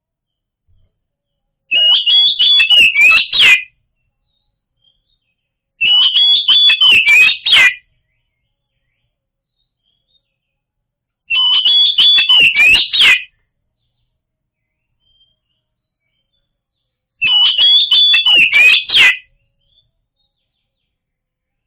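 Oriental magpie-robin (kacer) song: the same loud phrase of rapid whistled notes and sharp clicks, about two seconds long, comes four times with gaps of silence between. It is a prompting recording (pancingan) played to set a silent magpie-robin singing.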